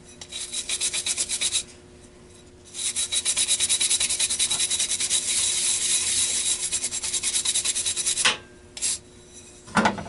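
Rapid back-and-forth scrubbing by hand on the metal parts of a Lennox pulse furnace's air flapper valve, cleaning off deposits that keep the flapper from opening and closing properly. There is a burst of about a second and a half, a short pause, then about five more seconds of quick even strokes, a brief last rub and a knock near the end.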